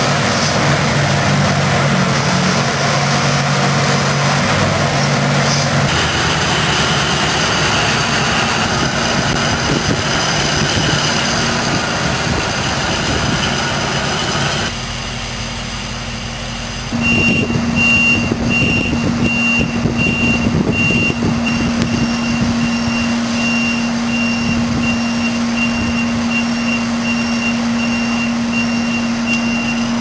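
Heavy-haul transporter carrying a mining shovel, its engine running steadily, with a brief quieter dip about halfway. After the dip a steady engine hum carries on while a back-up alarm beeps over and over, about one and a half beeps a second.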